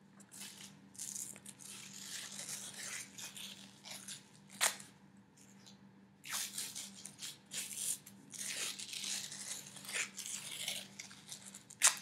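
Athletic tape being pulled off the roll and wrapped around an ankle in repeated crackly rips, with a sharper, louder rip about four and a half seconds in and another near the end.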